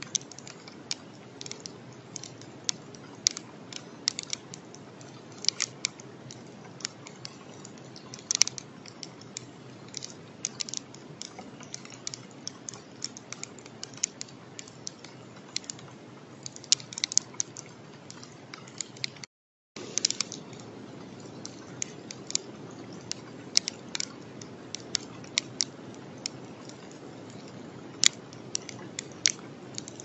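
Sleet or rain drops ticking on the outdoor camera's housing: irregular sharp clicks, several a second, over a steady low hiss. The sound cuts out completely for a moment a little past halfway.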